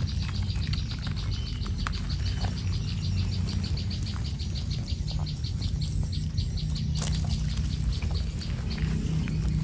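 Water gushing out of a metal outlet pipe into a pond, a steady low rumble. Over it, a high chirp repeats evenly about five times a second.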